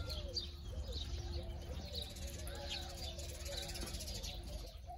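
Many birds calling at once: a dense run of short, overlapping low calls with higher chirps above them, over a faint steady hum.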